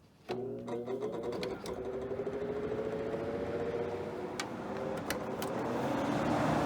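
Compressor of a vintage small-chassis Sears Coldspot window air conditioner kicking on about a third of a second in and running with a steady electric hum and several slowly drifting tones. The owners say the compressor is short-cycling.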